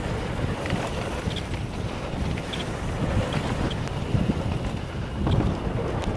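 Wind buffeting the microphone over a steady low rumble of a mountain bike rolling down a dirt trail, with a few faint clicks and rattles.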